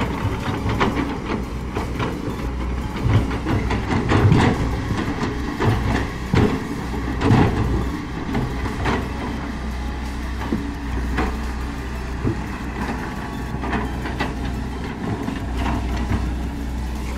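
Volvo EC210D excavator's diesel engine running steadily under load, with irregular knocks and scrapes as the bucket digs into and pushes wet clay.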